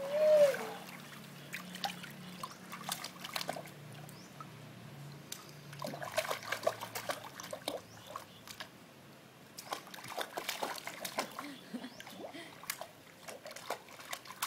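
Light splashing and trickling of pool water as a baby kicks his feet and slaps his hands on the surface: many small, irregular splashes. A brief held vocal note sounds at the very start.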